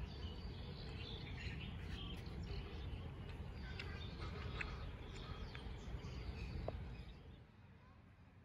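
Small birds chirping here and there over a steady low rumble of outdoor background noise. The rumble drops away about seven seconds in.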